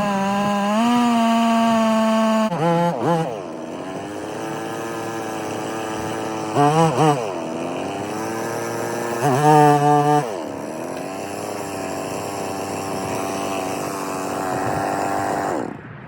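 Stihl two-stroke chainsaw on an Alaskan chainsaw mill running at full throttle under load while ripping a log lengthwise, with three short surges where the revs climb. Near the end the engine drops off suddenly as the long cut finishes.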